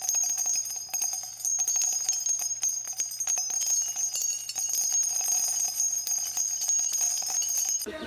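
Channel intro jingle: bright jingling bells with many quick tinkling strikes over steady high ringing tones, cutting off abruptly near the end.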